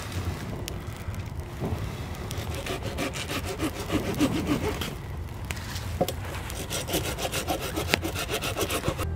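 Hand saw cutting through a piece of firewood in quick, rhythmic back-and-forth strokes that start about two seconds in.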